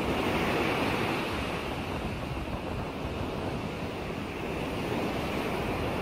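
Choppy, wind-driven lake waves washing and splashing steadily, a little louder in the first second.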